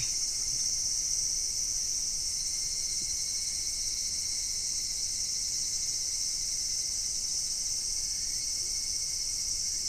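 Steady insect chorus: a continuous high-pitched buzz with no breaks, with a fainter thin steady tone below it.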